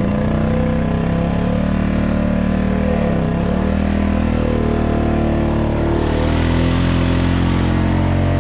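Quad bike (ATV) engine running at a low, fairly steady throttle with small dips in pitch, crawling through soft, waterlogged bog ground. A rushing hiss joins about six seconds in.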